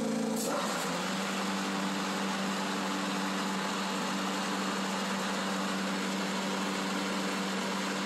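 John Deere Z335E zero-turn mower running with the deck engaged: a steady engine hum over the whir of the spinning deck belt, pulleys and blades, dipping slightly in pitch about half a second in and then holding steady. The deck is making a noise that points to a worn idler pulley or spindle.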